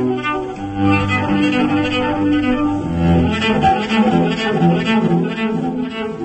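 Solo cello played with the bow: a melody of held notes that change every half second or so, dipping to lower notes about halfway through.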